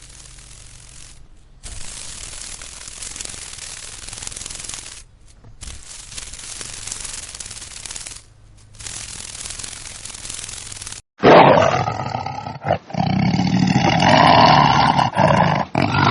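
Leopard sounds: a breathy, hissing rasp in short stretches broken by brief gaps, then, about eleven seconds in, a much louder growl.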